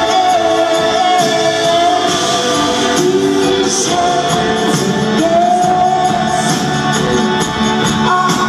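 A dream-pop band playing live in a large hall, heard from within the crowd: long held, slowly gliding sung notes over keyboards and a steady drum beat.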